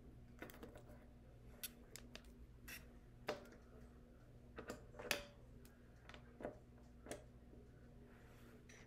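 Faint, scattered light clicks and taps of small craft tools and materials being handled on a tabletop, irregular, the most distinct one about five seconds in.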